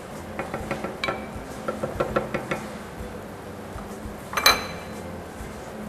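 Cooking utensils knocking against frying pans on the hob: a quick run of light taps, then one louder metallic clank that rings briefly about four and a half seconds in. A steady low hum runs underneath.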